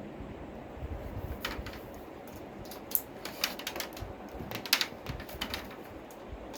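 Irregular light clicks and taps of hard plastic being handled, a dozen or so scattered through, the sharpest about three seconds in and near five seconds: parts of a plastic wet and dry vacuum cleaner being unpacked and fitted together.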